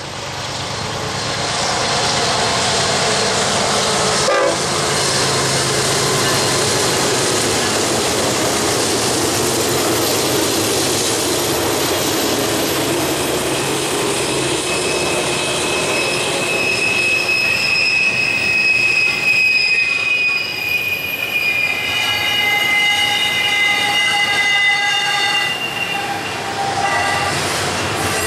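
Long double-stack intermodal freight train passing close by: a steady rumble and rattle of wheels and well cars on the rails. From about halfway on, high, shifting steel-wheel squeals join in.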